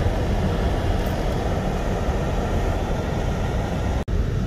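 Car driving on a paved road, heard from inside the cabin: a steady rumble of road and engine noise.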